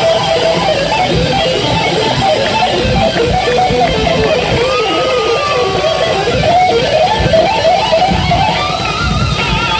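Amplified electric guitar playing a fast lead solo: rapid runs of notes, then near the end a high note held with wide vibrato, over bass and drums.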